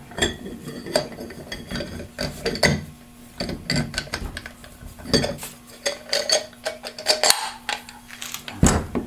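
Steel parts of a Turbo 400 output carrier assembly clinking and rattling as it is handled and turned in the hands, a string of irregular sharp clicks and knocks. A faint steady hum runs underneath.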